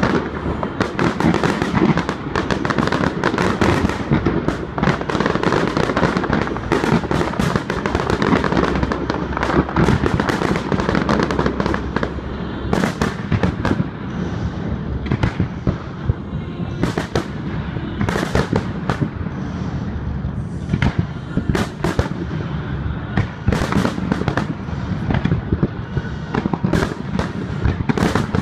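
Fireworks display: a dense barrage of bangs and crackling for about the first twelve seconds, then thinner, more separate sharp bangs.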